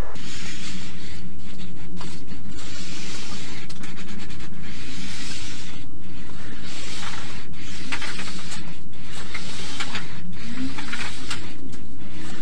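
A homemade hand roller sheet-metal bender rolling along the edge of a long steel sheet as it forms a bend. It makes a continuous rolling, scraping noise with irregular clicks over a low wavering hum.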